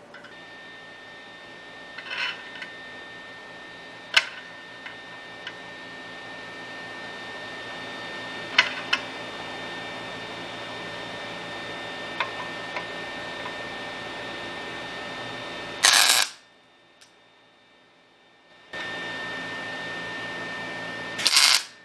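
Steel bracket pieces being handled and test-fitted against a steering rack: a few light metal clicks and knocks over a steady electrical hum, with two loud short bursts near the end.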